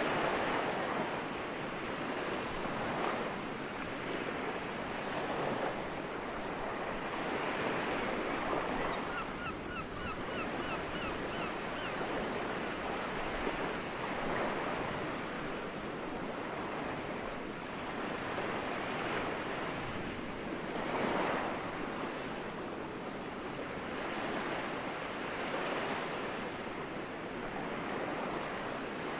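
Small sea waves washing onto the shore, a wave breaking and swelling every few seconds. About nine seconds in, a gull gives a brief run of faint short calls, about three a second.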